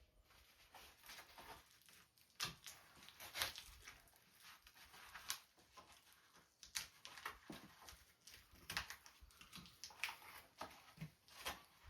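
Near silence, broken by scattered faint clicks and rustles, like small parts and packaging being handled.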